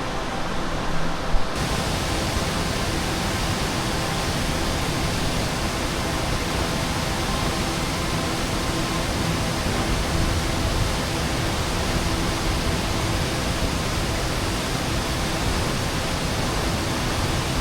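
Waterfall's falling water giving a steady, even rush, fuller in the highs after about a second and a half, with one brief knock about a second in.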